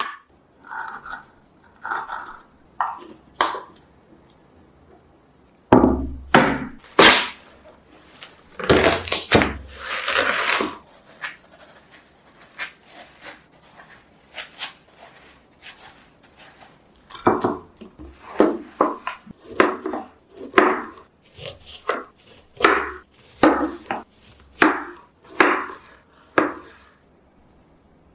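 Knife cutting fresh fruit on a cutting board: a run of crisp, juicy cuts and knocks through watermelon and mango, many in a steady rhythm of about one a second. At the start, a plastic jar cap being unscrewed gives a few small clicks.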